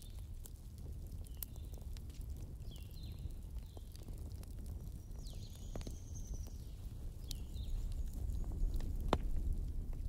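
Wood fire in a fireplace crackling over a low, steady rumble, with scattered sharp pops. The loudest pops come about halfway through and near the end, with a few short high squeaks in between.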